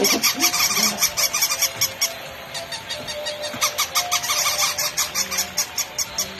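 Battery-operated walking toy puppies clattering along a wooden floor, their small gear motors making a fast, steady clicking. Short electronic yips repeat over it from the toys' bark sound boxes.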